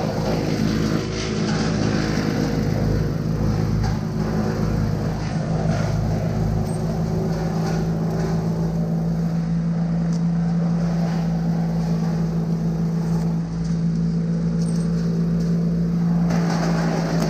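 An engine running steadily at one constant speed, with a strong even hum and overtones, interrupted only by a couple of brief dips.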